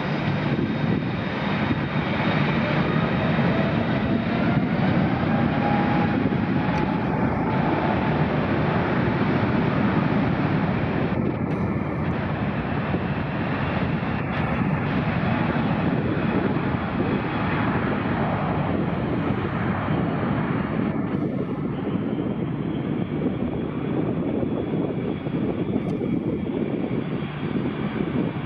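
Airbus A350-900 jet airliner taking off, its Rolls-Royce Trent XWB turbofans running at takeoff thrust: a loud, steady jet noise that holds throughout.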